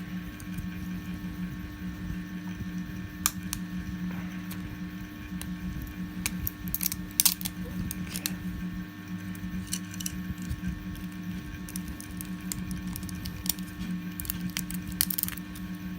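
Scattered sharp clicks and small snaps of 3D-printed plastic support material being picked and broken off a printed model with small hand tools, the loudest ones around halfway and near the end, over a steady low hum.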